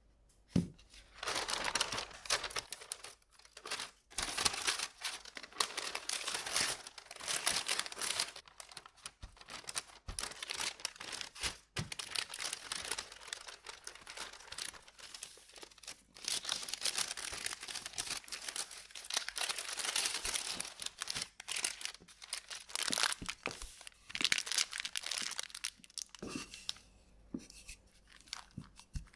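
Parchment paper crinkling and rustling under a wooden rolling pin as a block of cold butter is pressed and rolled flat inside it. It comes in strokes of a few seconds with short pauses between.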